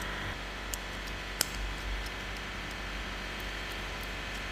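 A few light metal clicks from Knipex TwinGrip pliers working at a self-tapping screw stuck in a tire, one sharper click about a second and a half in, over a steady low hum.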